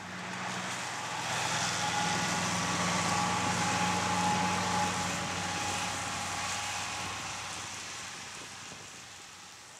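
Massey Ferguson tractor engine running steadily while its mower cuts grass, with a whirring hiss and a faint whine over the engine note. It grows louder over the first few seconds, then fades as the tractor moves away.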